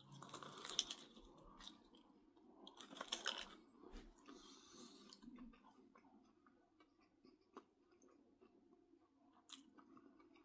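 A man biting into and chewing a mouthful of a pizza-dough puff filled with macaroni and cheese. The chewing is faint and comes in a few short bursts over the first half, then dies down to near silence.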